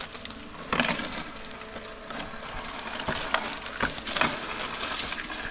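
Mammotion Luba AWD 5000 robot lawn mower running along brick edging, its cutting blade crunching through grass and dry debris, with irregular crackles over a faint steady motor hum.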